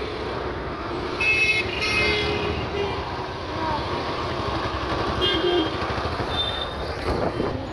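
Road traffic heard from a moving scooter: a steady rumble of engines, tyres and wind, with vehicle horns honking in short blasts, two close together between about one and two and a half seconds in and a couple more later on.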